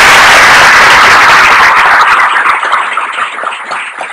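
Audience applauding, dense at first, then thinning to scattered claps and dying away near the end.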